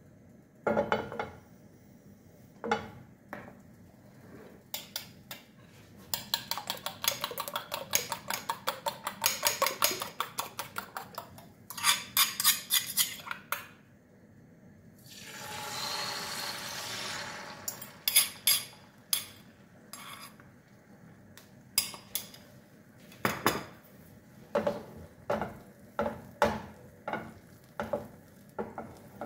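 Fork beating eggs in a ceramic bowl, a run of fast clinks against the bowl, then a few seconds of sizzling about halfway through as the beaten egg is poured into a hot oiled nonstick frying pan, followed by scattered single clinks of the fork on the bowl.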